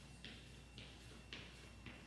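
Faint regular ticking, about two ticks a second, over a faint steady high whine.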